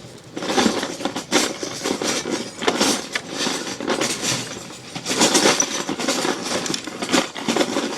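Hands rummaging through a pile of loose Lego bricks, the plastic pieces clattering and clicking continuously while searching for parts.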